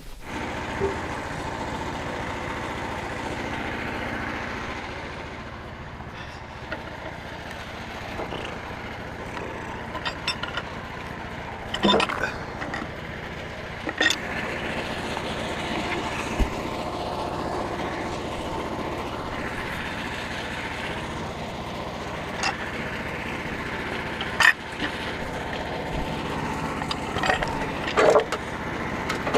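An engine running steadily, with occasional sharp clanks and knocks from machinery over the top of it.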